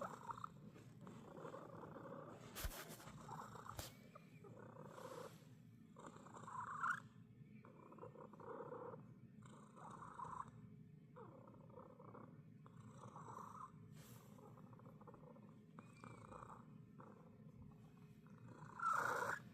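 Domestic cat purring, the purr swelling with each breath about every second and a half, with a louder burst near the end; the owner finds the sound strange.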